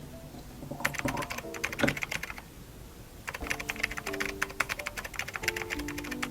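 Rapid typing on a keyboard: quick, irregular key clicks in two spells, the second starting about three seconds in. Soft piano-like music plays underneath.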